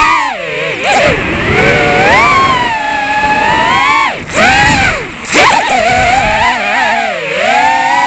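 FPV freestyle drone's brushless motors and propellers whining, the pitch rising and falling constantly with the throttle and dropping sharply a few times as the throttle is cut during flips and rolls.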